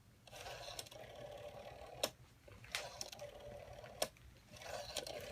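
Rotary telephone dial returning after each digit is dialled: a whirring of about a second and a half that ends in a sharp click as the dial comes to rest. This happens twice, and a third return starts near the end.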